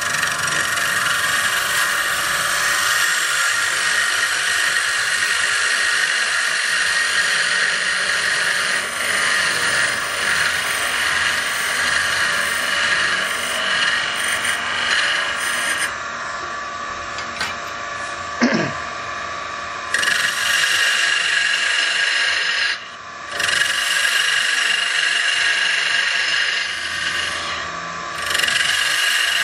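Parting tool cutting into a wood blank spinning on a lathe at about 1400 RPM: a steady scraping hiss as the diameter is reduced to a caliper setting. The cut eases off for a few seconds about halfway through and dips twice more near the end.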